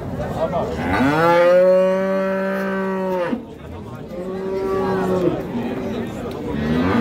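Cattle mooing: one long, held moo starting about a second in, a shorter, weaker one a second later, and another rising in near the end.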